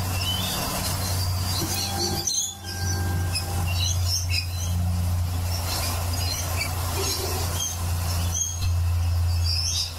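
Rainbow lorikeets and galahs calling in scattered chirps and squawks over a steady low hum.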